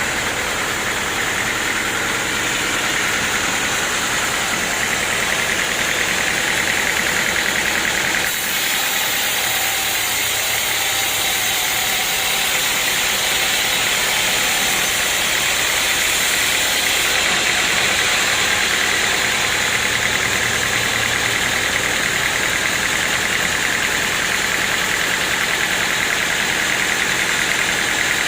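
Portable sawmill running, its engine driving the saw blade through a log: a steady, dense mechanical noise whose tone shifts about eight seconds in.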